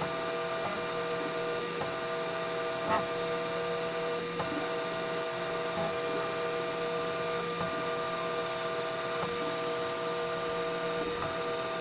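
3D printer running, its stepper motors giving a steady multi-tone whine; one tone drops out and comes back every second or two with a light tick as the head changes moves.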